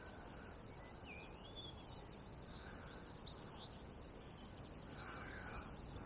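Faint outdoor ambience: a low steady rush of wind, with a few short chirping bird calls about a second and three seconds in.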